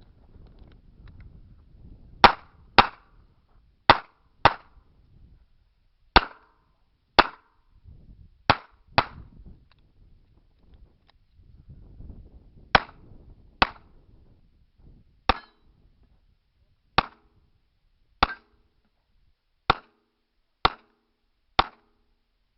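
Revolver firing about sixteen shots, sharp and loud, several in quick pairs, with a pause of about three and a half seconds in the middle.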